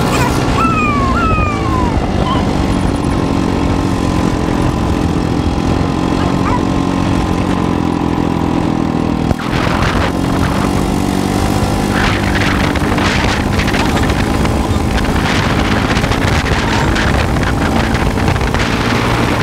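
Go-kart's small petrol engine running steadily and loud, with a rattly clatter that grows stronger after a brief dip a little past nine seconds.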